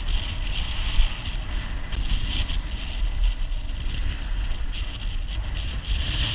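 Wind rumbling on the microphone over beach surf, with a steady high hiss throughout.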